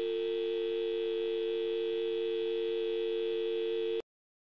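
Telephone dial tone: a steady two-tone hum closing the recorded pop song, held evenly and then cutting off abruptly about four seconds in.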